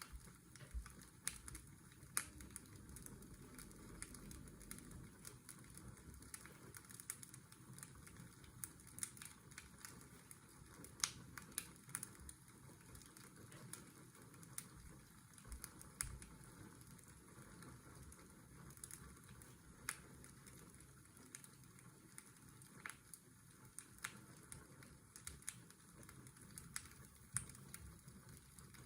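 Fireplace crackling: irregular sharp pops and snaps over a faint steady rush of washing-machine white noise.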